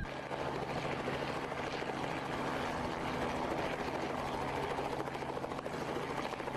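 Helicopter hovering, its engine and rotor making a steady drone with a fast, even chop.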